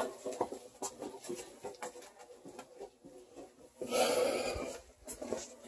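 Faint scattered light clicks and knocks of hand work on a furnace, with a louder rustle lasting about a second, starting nearly four seconds in.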